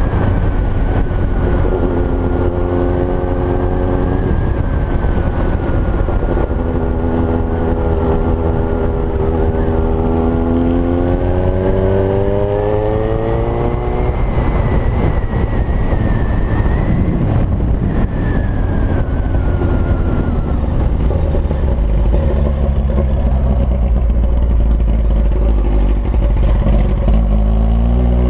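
Kawasaki ZX-9R inline-four motorcycle engine running with no exhaust fitted, loud and raw under riding. Its pitch climbs steadily for several seconds, drops back around the middle and starts climbing again near the end.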